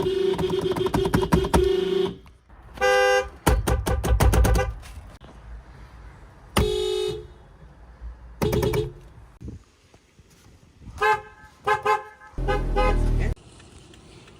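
Horns of several 2000s cars sounded one after another. Most are short single honks of under a second, separated by quieter gaps, and the first couple of seconds are a rapid pulsing string of beeps.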